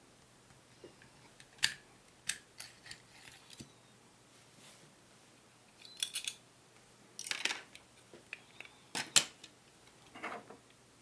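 Parts of an Umarex Walther PPK/S airsoft spring pistol being handled during disassembly: scattered sharp clicks at irregular intervals, the loudest near the start and about nine seconds in, with short scrapes about seven and ten seconds in.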